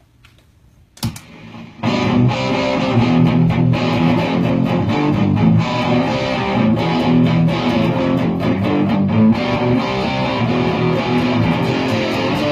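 Electric guitar played through distortion, sustained chords ringing out. A sharp click comes about a second in, and the playing starts about two seconds in.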